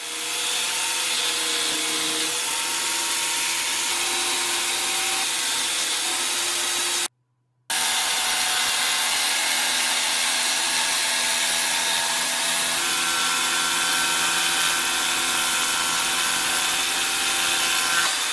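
Electric jigsaw, mounted in a jigsaw table, running and sawing through wood: a steady, loud buzzing cut. It breaks off abruptly for about half a second around seven seconds in, then carries on.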